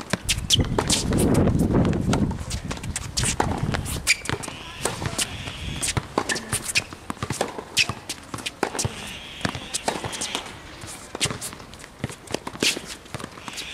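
Tennis rally on a hard court: sharp pops of racket strings striking the ball and ball bounces, with footsteps and shoe scuffs on the court surface. A low rumble fills the first few seconds.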